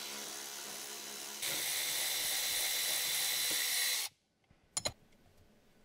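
Tesla electric power seat motor running as the seat moves along its track. It gets louder after about a second and a half, then stops abruptly about four seconds in, followed by a single short click.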